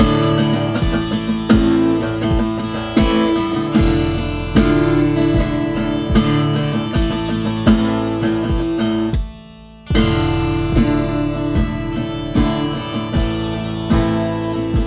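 Music: acoustic guitar strummed in a steady rhythm, with a short break about nine seconds in before the strumming picks up again.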